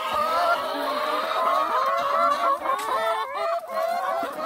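A flock of hens clucking in a hen house, many calls overlapping into a continuous chatter.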